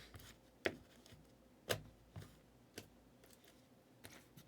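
Trading cards being handled: a few faint, sharp clicks and taps, roughly a second apart.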